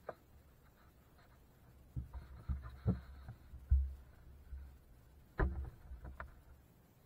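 Muffled knocks and thumps on the hull of an RC speedboat as it is handled out of the water, picked up through the deck-mounted camera: a cluster of them about two to four seconds in and a sharp one near the end, over a low rumble.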